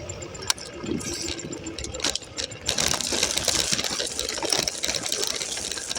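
Bike rattling and clattering as it is ridden over a rough trail. A steady rushing noise grows louder about three seconds in.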